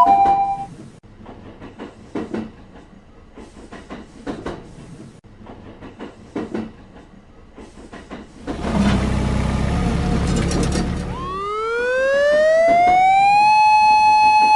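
Faint scattered clicks, then about eight seconds in a loud rushing noise with a low rumble lasting about three seconds. After it a siren wail rises in pitch, holds, and begins to fall at the end.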